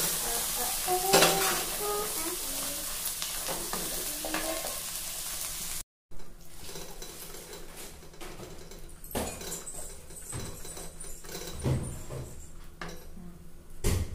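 Cooked horse gram and its water sizzling in hot oil in a non-stick kadai while being stirred and scraped with a wooden spatula. After a brief cut about six seconds in, the sizzle is quieter, with scraping and a few knocks of the spatula against the pan.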